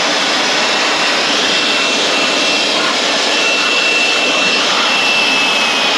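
Air blower nozzle blasting a steady, loud hiss of air with a faint high whistle, blowing dust out of a gas furnace's controls and blower fan.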